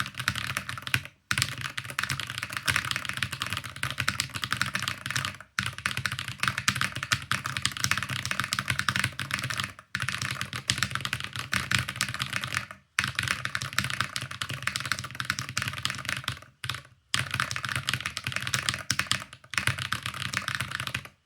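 Very fast typing on a Luminkey Magger68 HE keyboard with Gateron Jade Pro switches: a dense, continuous clatter of keystrokes broken by brief pauses every few seconds.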